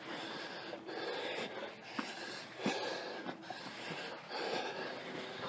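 A person breathing hard and out of breath from walking uphill, with quick, regular breaths.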